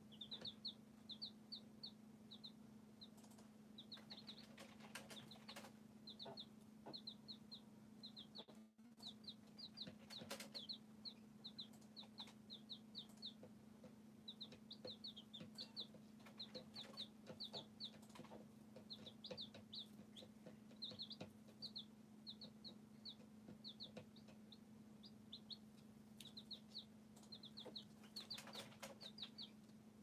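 Baby chicks peeping, short high falling cheeps in quick runs of three to five, repeating over and over. Scattered faint taps and a low steady hum lie underneath.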